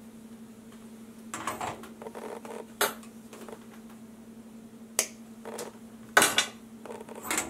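Small hand tools being worked on thin hookup wire and handled on a workbench: a handful of sharp clicks and snips with rustling between them, the loudest about six seconds in, over a steady low hum.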